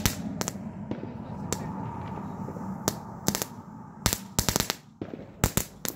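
Ground firework burning with a steady hiss and irregular sharp cracking pops; the hiss fades after about four seconds while the cracks come in quick clusters near the end.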